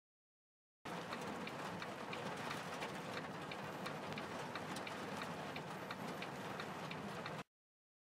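Heavy rain striking a truck cab's windshield and roof, heard from inside the cab: a dense hiss of rain with many sharp ticks of single drops. It starts suddenly about a second in and cuts off suddenly near the end.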